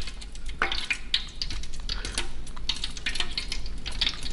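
Scattered light clicks and taps of kitchen utensils and dishes being handled, at irregular intervals.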